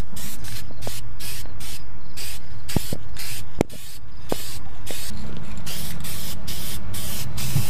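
Rust-Oleum hammered black aerosol spray paint hissing out in short, rapid bursts, about three a second, as the can is emptied onto bare metal. A few sharp clicks come in the middle.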